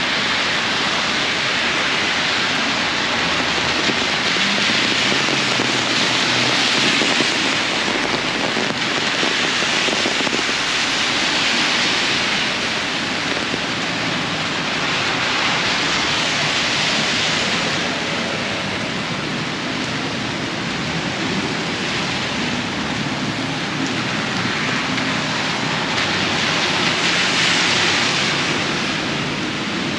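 Heavy rain falling steadily on a city street, with the hiss of tyres on wet pavement swelling and fading every few seconds as cars pass.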